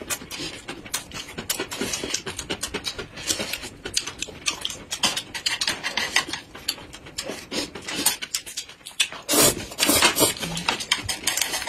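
Close-miked eating sounds: chewing and lip-smacking, a quick run of wet clicks. About nine seconds in comes a louder slurp as noodles are sucked up.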